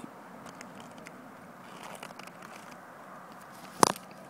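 Low steady background noise, broken near the end by a single sharp knock.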